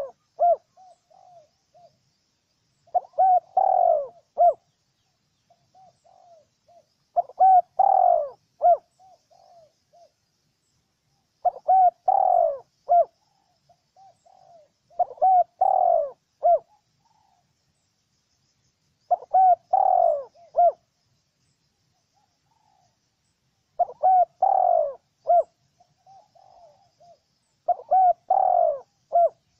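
Spotted dove cooing: a phrase of several coo notes repeated about every four seconds, with softer short notes between the phrases.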